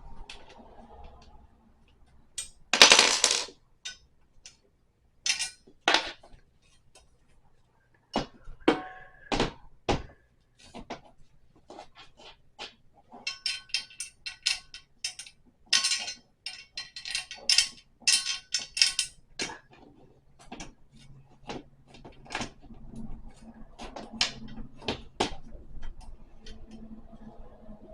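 Flat-pack dresser assembly: scattered clicks, clinks and knocks of metal fasteners, tools and panels being handled and tightened, with a loud rustling scrape about three seconds in and a quick run of clicks in the middle.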